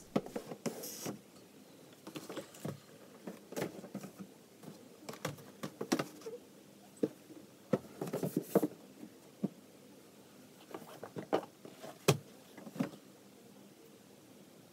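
Cardboard boxes being handled and slid onto a shelf: scattered taps, knocks and scraping rustles, with a cluster of knocks about eight seconds in and a sharper knock about twelve seconds in.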